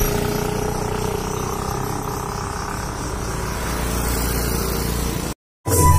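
Steady outdoor background noise, a low rumble with hiss and a faint hum. It cuts out suddenly near the end, and loud music with a heavy beat and a tambourine starts.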